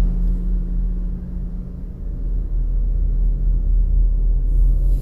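Wind buffeting an outdoor phone microphone: a loud, steady low rumble that eases off briefly about a second in.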